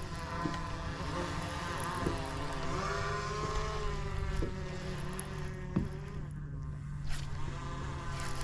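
Bow-mounted electric trolling motor running: a whine with several pitches over a low steady hum, dipping and rising in pitch about two to three seconds in, with a few light knocks.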